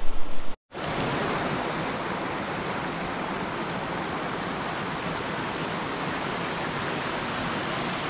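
Shallow river water running steadily over rocks and small rapids, starting suddenly about half a second in.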